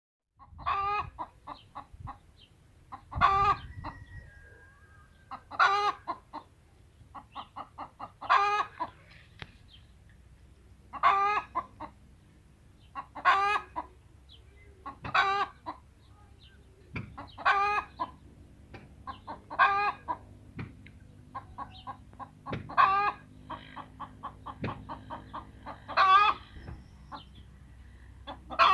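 A hen cackling: quick runs of short clucks, each ending in a loud drawn-out squawk, over and over about every two and a half seconds.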